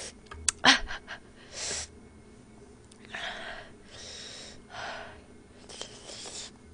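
A woman's sharp, hissing breaths through the mouth, about five of them, the way one pants against the burn of very spicy Buldak fire noodles. A sharp click just under a second in.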